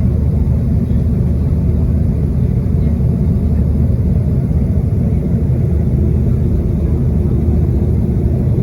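Steady low rumble of a Boeing 737-800's cabin, heard from inside: the CFM56-7B engines and the airflow running evenly with no change in pitch or level.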